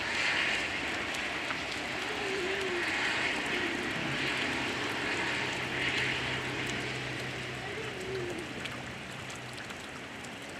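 Steady hard rain hissing down, easing slightly toward the end. A low steady hum joins it from about four seconds in and drops away about four seconds later.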